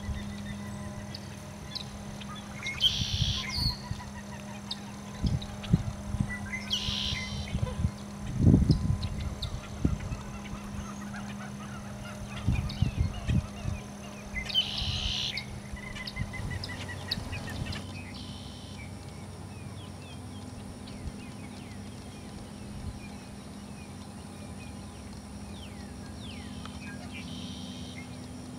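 Marsh birds giving short, harsh calls every few seconds, four loud ones in all, with fainter chirps and a brief trill between them. Under them run a steady low hum and scattered low thumps.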